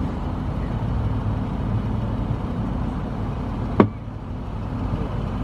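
A car engine running steadily at a low rumble. A single sharp click comes a little under four seconds in, after which the sound is briefly quieter.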